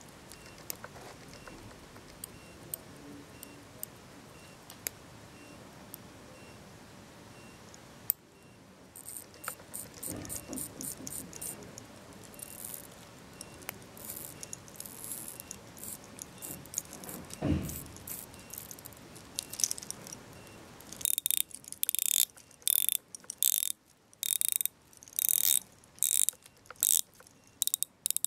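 Rotating dive bezel of an Invicta Pro Diver 8929OB watch being turned by hand, ratcheting in short runs of clicks. Sparse faint ticks at first, then the runs come closer together, and in the last several seconds they are louder and repeat about twice a second.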